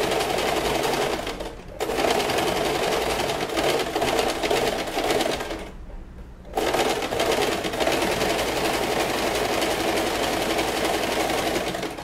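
Elgin domestic electric sewing machine running, stitching a long gathering seam along fabric. It pauses briefly about a second and a half in and stops for about half a second around the middle, then sews on steadily until near the end.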